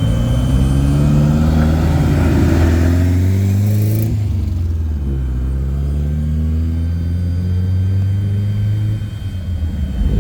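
A car engine revving with a loud exhaust, its pitch climbing for the first few seconds and dropping off about four seconds in, then running on at a steadier, lower pitch.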